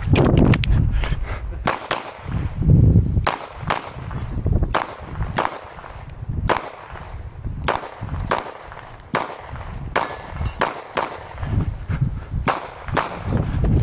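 A string of about two dozen pistol shots fired during a competition stage, mostly in quick pairs with brief pauses between groups as the shooter moves from target to target.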